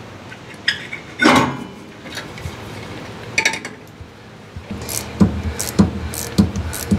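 Metal clinks and taps of hand tools working on an opened rear differential housing, then a run of regular knocks about every 0.6 s over a low hum in the second half.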